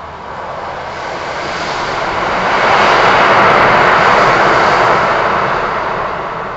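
A train passing on a neighbouring track while the recording train stands at the platform: its noise swells to a peak about three seconds in and then fades away.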